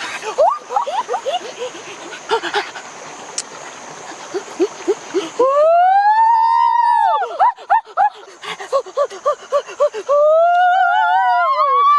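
Exaggerated vocal cries from a young person: short chirping yelps at first, then a drawn-out wail that rises and falls in pitch for about a second and a half, a string of quick short yelps, and a second long rising-and-falling wail near the end.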